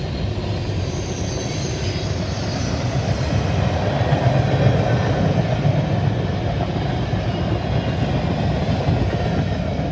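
CSX freight train rolling past close by: a steady rumble of steel wheels on the rails, swelling a little midway. Faint high wheel squeals fade out after about three seconds.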